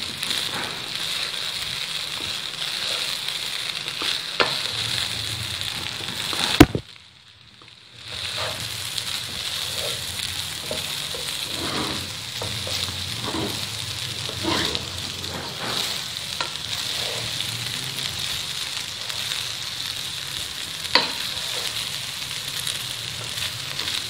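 Garlic rice sizzling in hot oil in a non-stick pan while a wooden spoon stirs and scrapes through it, mixing in soy sauce, salt, pepper and green onions, with small clicks of the spoon throughout. A sharp knock comes about seven seconds in, followed by a second or so of hush before the sizzling resumes, and another single click comes near the end.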